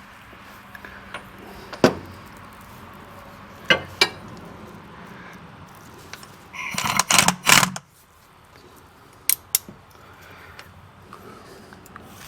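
Metal hand tools and blade hardware clinking and clanking: a few sharp single clinks, a burst of rapid metallic rattling about seven seconds in, the loudest moment, and two more clinks near the end.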